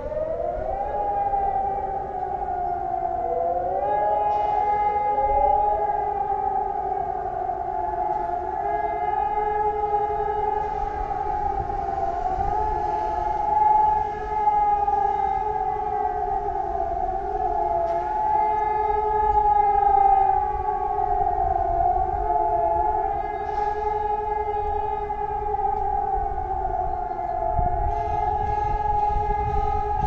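Several civil-defence sirens across the city start up one after another, rising in pitch, then hold a steady, slightly wavering tone. This is the steady-tone 'all clear' (Entwarnung) signal that opened the siren test.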